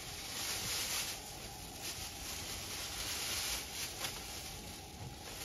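Plastic bags rustling and crinkling in the hands as cheese is bagged, swelling and fading in patches.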